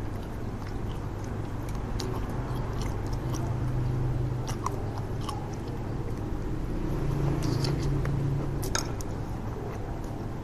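Close-up chewing of a somewhat tough beef steak, with scattered light clicks of a fork and knife against the plate, over a steady low hum.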